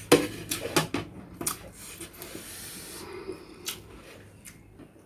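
A few sharp clicks and knocks of objects being handled, with a brief hissing noise about two seconds in.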